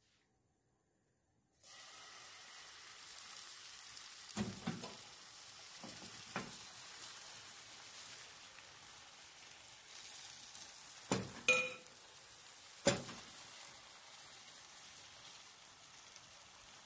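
Crepe batter sizzling in a hot oiled frying pan, the steady hiss starting suddenly about a second and a half in, with a few sharp knocks of a utensil against the pan as the batter is spread.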